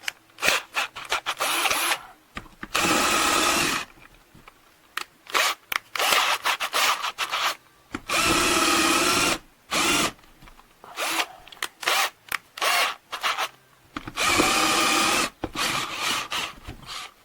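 KELNOW 21V cordless drill run three times, each time for about a second, its motor giving a steady whine. Short clicks and brief bursts come in between.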